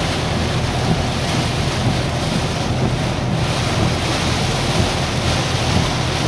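Hurricane wind and heavy rain rushing steadily around a car, with wind buffeting the microphone.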